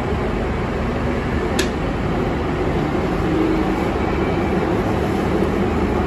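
Jubilee line tube train heard from inside the carriage in a tunnel: a steady rumble and hiss of the train running, with a faint wavering hum and a single click about a second and a half in.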